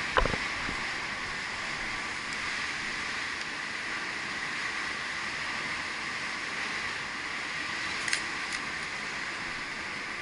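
Steady outdoor hiss, brightest in the upper-middle range. There is a single sharp knock just after the start, and two short sharp clicks about eight seconds in.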